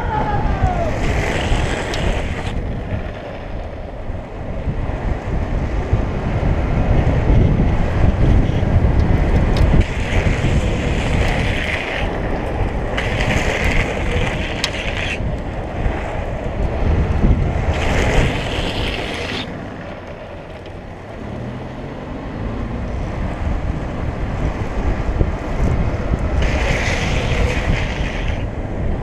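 Steady rushing wind noise on the microphone, broken five times by hissing scrapes of about a second and a half each: the longboard's urethane wheels and the rider's slide-glove pucks sliding on the asphalt as he scrubs speed in hands-down slides.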